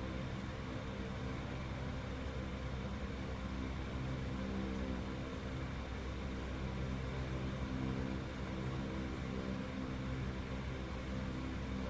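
A steady low mechanical hum made of several low tones that swell and fade slightly, with no clicks or squishes.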